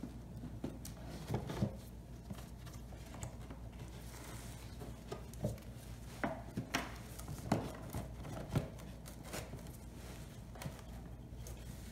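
Hands handling parts around a small generator engine: scattered light knocks and clicks of plastic and metal with cloth rustle, busiest in the middle. A steady low hum runs underneath.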